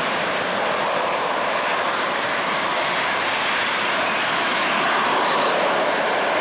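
Military jet flying past at an air display, its engine noise a steady rushing sound that grows slightly louder about five seconds in.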